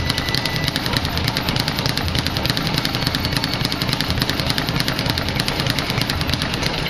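Speed bag being punched nonstop: a fast, even rattle of the bag slapping against its rebound board, many hits a second.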